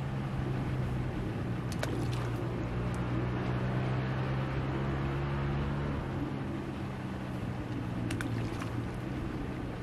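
Balls of groundbait thrown into a lake, landing with two short sharp splashes, one about two seconds in and one about eight seconds in, over a steady low hum.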